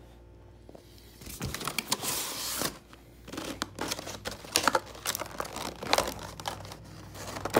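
Cardboard box and clear plastic blister tray of a Pokémon card collection box being handled: a rough scrape of about a second as the tray comes out of the box, then crinkling and sharp clicks of the stiff plastic.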